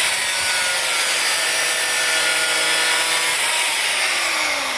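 Power cutter slicing through steel rebar: a loud, steady grinding hiss with a high motor whine, whose pitch slides down near the end.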